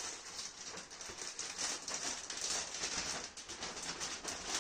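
A large clear plastic Storage Logic mattress vacuum bag being unfolded and shaken open by hand, its thin plastic crinkling and rustling in quick, irregular crackles.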